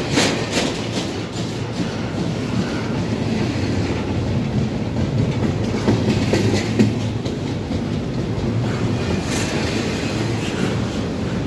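Norfolk Southern intermodal freight train's double-stack container well cars rolling past at close range: a steady rumble of steel wheels on rail, with a few wheel clicks over rail joints at the start.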